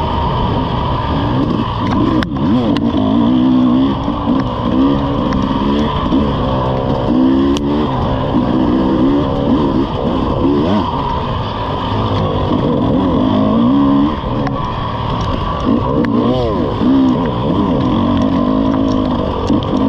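Dirt bike engine under riding, its pitch repeatedly rising and falling as the throttle is opened and closed along a rough trail. A few sharp knocks cut through now and then.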